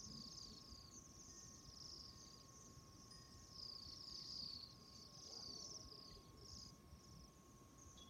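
A flock of small birds chirping, a dense, faint chatter of overlapping high chirps, with a faint steady tone underneath.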